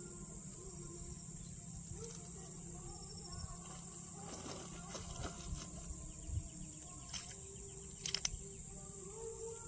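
Outdoor ambience with a steady high-pitched insect buzz over a low hum, broken by a few faint clicks and knocks, the loudest a quick cluster of clicks about eight seconds in.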